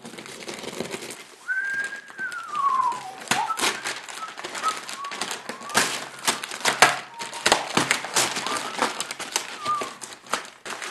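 Packing tape and brown wrapping paper being peeled and torn off a cardboard box: an irregular run of crackles and rips. A thin squealing tone starts about one and a half seconds in and falls in pitch over about two seconds, with a few fainter short squeaks later.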